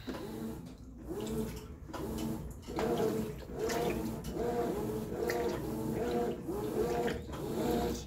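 Brastemp top-load washing machine agitating on the normal setting: the drive motor hums in short strokes that rise and fall in pitch with each reversal of the agitator, about two a second, with water sloshing in the tub.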